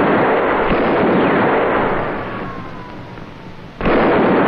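Revolver gunfire in a shootout, the shots running together into a dense, loud clatter. It dies down about halfway through, with a faint falling whine, then cuts back in loud near the end.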